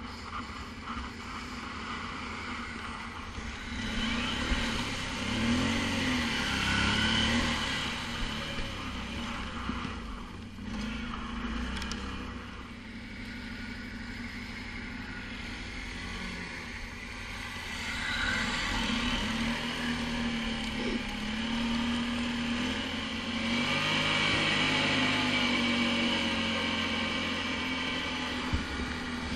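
ATV engine running under way, its revs rising and falling again and again as it is ridden, louder in several stretches.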